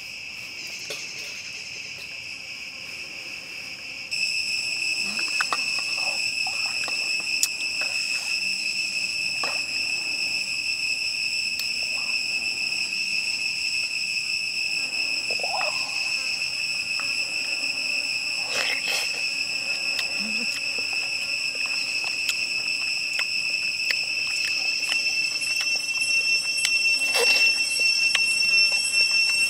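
Steady high-pitched insect drone, one unbroken tone with overtones, which gets louder about four seconds in and again near the end. Occasional light clicks of chopsticks and a spoon against a steel plate.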